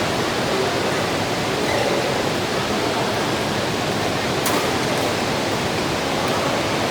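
Steady hiss of heavy rain, with a faint sharp tick about four and a half seconds in.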